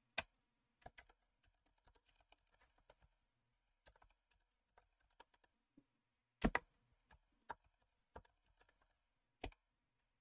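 Faint typing on a computer keyboard: irregular keystrokes with a few sharper, louder presses, one right at the start, a couple about six and a half seconds in and one near the end.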